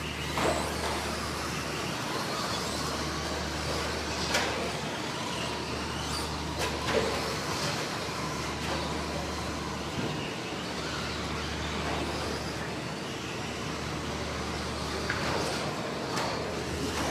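Radio-controlled stock-class trucks racing on an indoor dirt track: a steady wash of small motors and tyres on the dirt over a constant low hum, broken by several sharp knocks.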